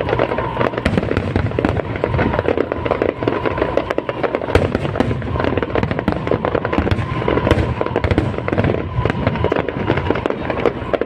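Aerial fireworks display: a dense, continuous barrage of bangs and crackling with no pause.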